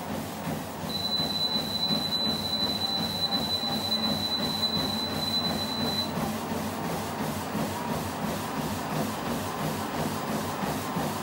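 Dripex motorised folding treadmill running at speed, its belt and motor making a steady rumble under a runner's rhythmic footfalls, about three a second. A thin steady high-pitched tone sounds for about five seconds, starting about a second in.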